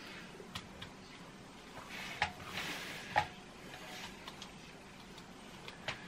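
LEGO bricks being handled and pressed together by hand: scattered small plastic clicks, with two sharper snaps about two and three seconds in and a brief rustle between them.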